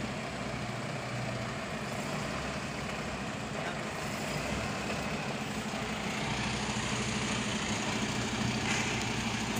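Heavy truck's diesel engine running steadily at low revs, a little louder in the second half.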